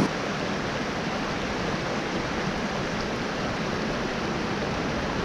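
Small mountain creek running, a steady even rush of water.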